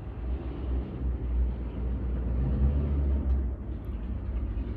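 A motor vehicle's engine running, a steady low drone.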